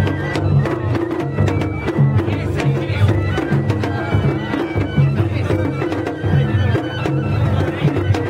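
Japanese festival float music (hayashi): drums beaten in a steady rhythm with a high wind instrument, likely a bamboo flute, playing short notes over them.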